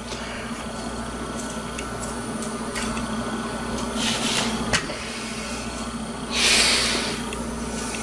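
Handling noise from a work mat and the opened plastic GPS housing being shifted on a desk: a short scrape about halfway through, then a louder rubbing scrape lasting about a second near the end, over a steady low hum.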